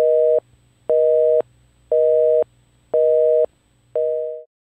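Telephone busy signal: a steady two-tone beep repeating about once a second, five beeps, the last one fading out.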